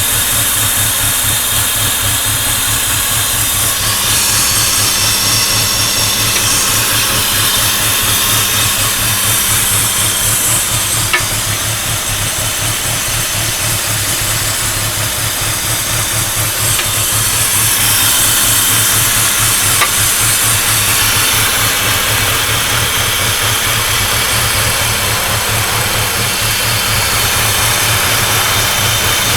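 2004 BMW E46's engine running steadily with a fast, even knocking/pinging, and a hiss over it. The owner connects the knock to having driven through water.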